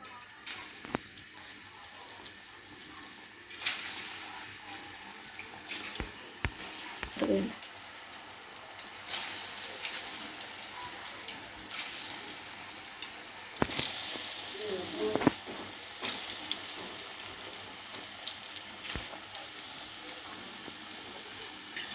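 Battered potato fries deep-frying in hot oil in an aluminium karahi: a sizzle that starts suddenly as the first fries are dropped in and grows as more go in. A few sharp clicks of a metal spoon against the pan.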